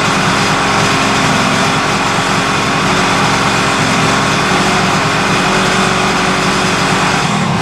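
Kawasaki S2 350 three-cylinder two-stroke motorcycle engine running steadily with its middle (number 2) cylinder not firing. Its note drops near the end.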